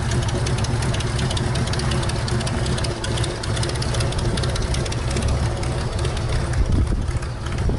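Airboat engine and propeller running steadily.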